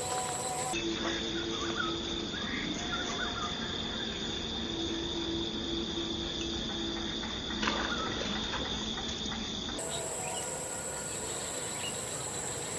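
Steady high-pitched insect chorus of crickets or cicadas, with one short click about eight seconds in.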